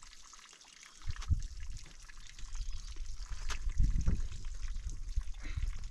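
Coarse, wet granular snow crunching and scraping underfoot as someone moves down the snowfield, with irregular low thumps. It starts about a second in and gets louder in the second half.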